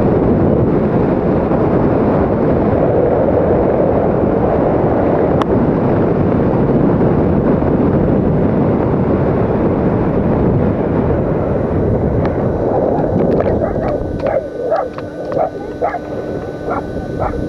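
Wind rushing over the camera microphone on a parachute descent, dying down about fourteen seconds in as the skydiver lands. A series of short repeated sounds, about two a second, follows near the end.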